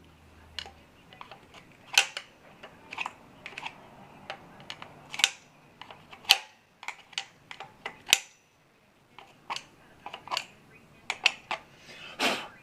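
Irregular sharp clicks and clinks of hand tools and small metal parts being handled during work on a motorcycle engine, a few of them ringing briefly.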